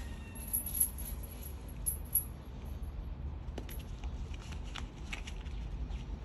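Scattered light clicks and ticks with brief high jingling, twice in the first two seconds, over a low steady rumble.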